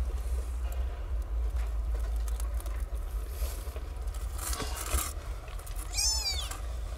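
Newborn kitten giving one high, wavering mew about six seconds in, over soft rustling as the kittens shuffle at the nursing mother's belly.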